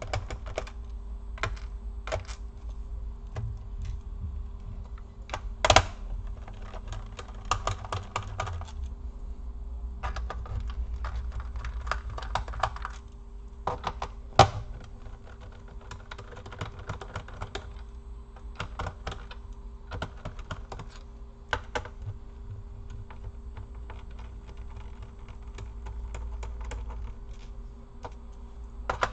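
Screwdriver and screws clicking and tapping on the plastic bottom case of an Acer laptop as its screws are undone and handled, with rustling of hands on the case between the clicks. Two louder knocks come about six and fourteen seconds in.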